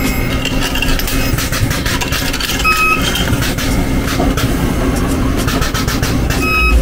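Inverter resistance spot welder joining a replacement steel quarter panel, giving a steady loud buzzing hiss. Two short high beeps come about three seconds in and again near the end.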